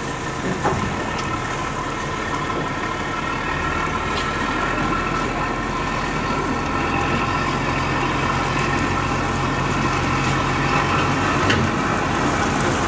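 Fishing vessel's diesel engine running steadily during a harbour tow, growing gradually louder, with a deeper engine note coming in a few seconds in.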